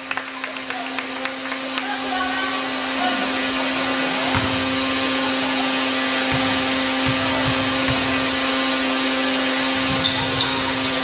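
Steady whirring hum of a motor or fan with a constant low tone, with faint voices and knocks, likely ball bounces, at the start.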